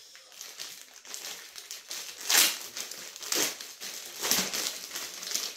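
Clear plastic packaging bag crinkling and rustling as it is pulled open and off a handbag, with three louder crackles about a second apart.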